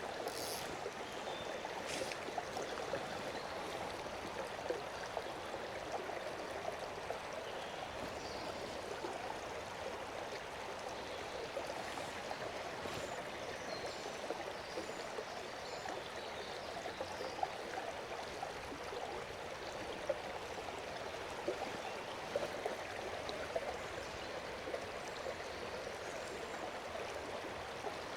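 Fast-flowing river water running over rocks, a steady rushing. There are a couple of light knocks in the first two seconds.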